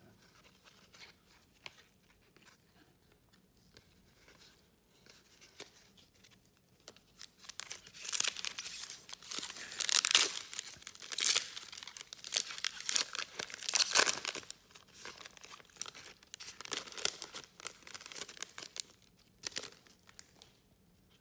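Trading card pack wrapper being torn open and crinkled by hand, in a run of rustling tears from about eight seconds in, loudest near the middle; only faint handling before that.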